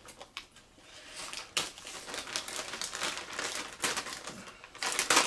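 Packaging being handled: irregular crinkling, rustling and small clicks, with a louder burst of crackling near the end.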